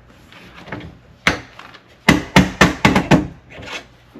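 Safe door and handle being worked: a sharp click, then a quick run of about six hard knocks and rattles, with a softer one near the end.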